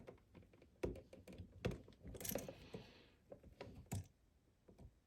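Scattered small clicks and a brief scrape from handling a stripped electrical wire and a wall outlet while the wire is worked into the outlet's push-in terminal hole.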